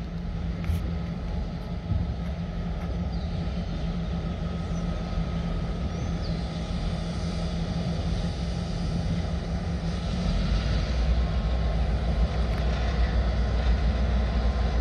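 Two diesel-electric freight locomotives running, a steady low engine drone that grows louder about two-thirds of the way through as they draw near.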